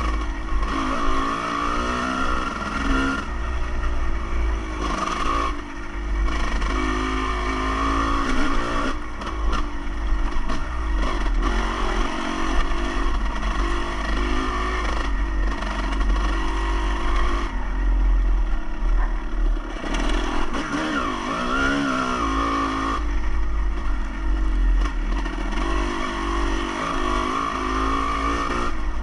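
A motor vehicle engine running and revving, its pitch rising and falling repeatedly, over a steady low rumble.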